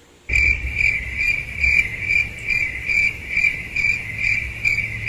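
Cricket chirping sound effect: a high, even chirp pulsing a little over twice a second, which cuts in abruptly just after the start and is loud against the quiet room.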